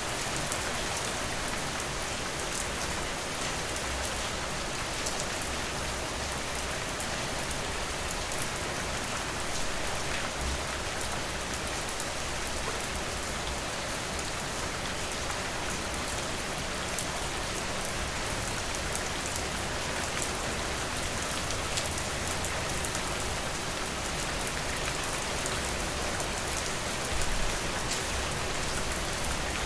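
Steady rain: an even hiss with many small drop hits, and a brief low rumble near the end.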